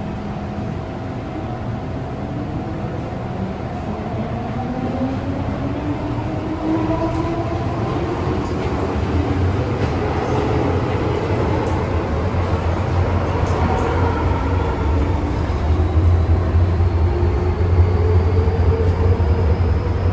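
MTR M-train electric multiple unit accelerating away from a station, heard from inside the car: the traction motors whine in several tones that rise steadily in pitch. The running rumble grows louder from about halfway through as the train gathers speed.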